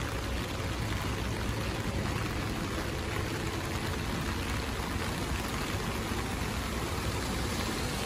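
Steady rain falling on wet pavement: an even hiss of water with a low rumble beneath it.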